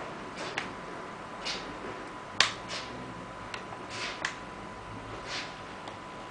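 Small hand-work noises while a netbook is being taken apart: scattered light clicks and short scrapes of plastic parts and a small screwdriver, with one sharp click about two and a half seconds in.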